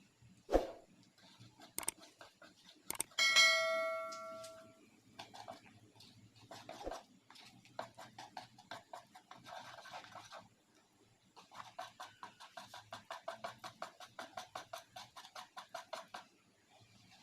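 Batter being whisked by hand in a bowl: rapid, even tapping of the utensil against the bowl, about nine strokes a second, in two long runs. Near the start the utensil knocks the bowl once, and the bowl rings and fades out.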